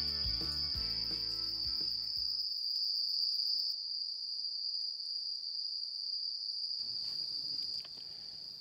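A steady, high-pitched chirring of evening insects such as crickets. For the first two and a half seconds, background music with a bass line plays over it, then stops.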